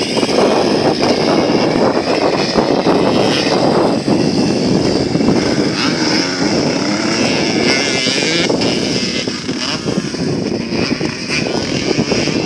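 Motocross dirt bike engines running and revving up and down as the bikes ride a dirt track close by.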